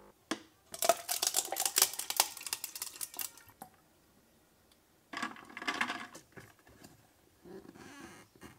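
Ice cubes clinking and rattling against each other and a clear plastic tumbler, in two bouts of clatter: a longer one about a second in and a shorter one about five seconds in.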